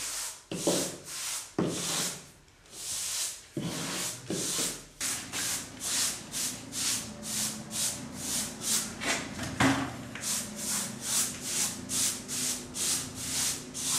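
Wide bristle ceiling brush scrubbing over fresh, still-soft cement plaster to give the wall a brushed texture: short scratchy strokes. The first few come irregularly, then they turn into quick back-and-forth strokes at about two or three a second.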